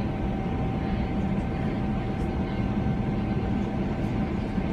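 Cabin noise inside a Boeing 777-300ER climbing after takeoff: the steady sound of its GE90 engines and the airflow over the fuselage, with a constant thin whine over it.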